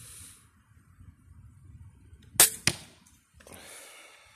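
Steambow AR-6 Stinger repeating pistol crossbow firing once, about two and a half seconds in: a sharp snap followed a fraction of a second later by a second crack. A softer rustling scrape follows near the end.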